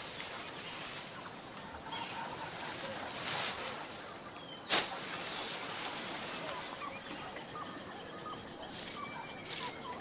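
Rainforest ambience with scattered short bird chirps, palm fronds rustling as they are pushed aside and pulled, and one sharp crack about five seconds in as a palm stalk is cut.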